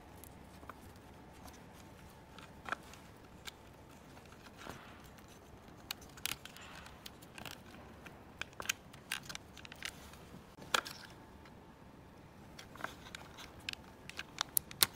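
Hands handling and fitting hard plastic parts: scattered small clicks and taps, coming closer together near the end as plastic inserts are pressed into a round plastic housing.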